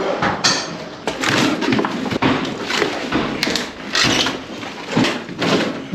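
Irregular knocks, thuds and scraping of hand demolition and debris-clearing work, with material being broken out and dragged.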